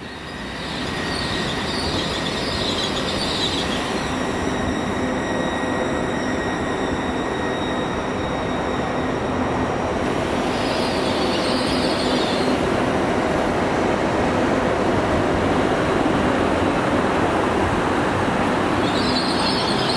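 GWR Hitachi intercity express train rolling slowly past, slowing for a red signal, with a steady rumble of wheels on rail. Short high squeals from the wheels or brakes come about a second in, again around eleven seconds, and near the end.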